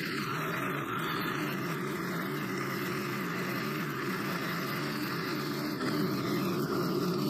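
Stihl FS90R string trimmer's small four-stroke engine running at a steady high speed, its string head whipping through tall grass.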